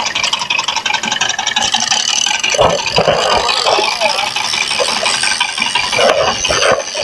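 Small fishing boat's engine running with a fast, even rattle.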